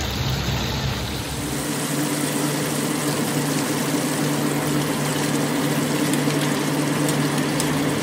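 Chopped chicken pieces deep-frying in a wok of hot oil, a steady dense sizzle of bubbling oil over a steady low hum. This is the final crisping fry of the chicken.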